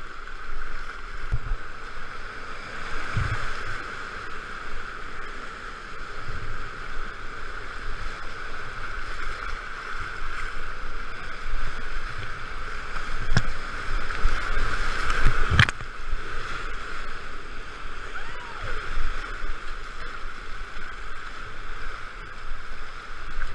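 Rushing whitewater rapids heard close up from a kayak, a steady loud wash of churning water, with the irregular splash and thump of paddle strokes and two sharp knocks about halfway through.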